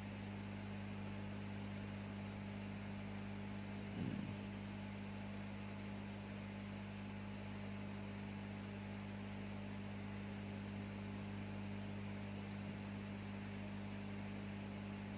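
Steady electrical mains hum with faint hiss, with one brief low sound about four seconds in.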